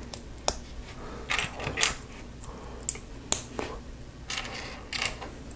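Small plastic LEGO bricks clicking and clattering as they are handled and pressed together, in irregular sharp taps.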